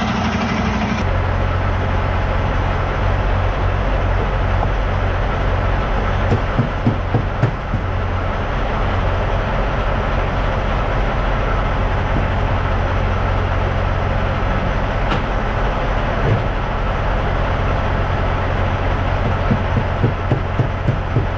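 Semi-truck diesel engine idling steadily, with a few short light knocks about six seconds in and again near the end.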